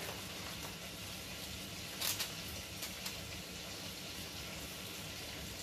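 Steady low hiss, with a brief soft rustle about two seconds in and a fainter one just after, as grated cheese is sprinkled by hand over mini pizzas on parchment paper.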